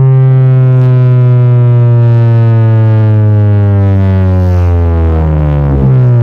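A competition car-audio system's subwoofers play one long, very loud bass test tone for a sound-pressure-level measurement, its pitch sliding slowly downward. The tone is heavily distorted, with many overtones stacked above it.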